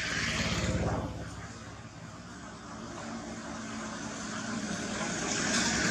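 Rushing noise of passing motor traffic, swelling about a second in, fading, then building again toward the end.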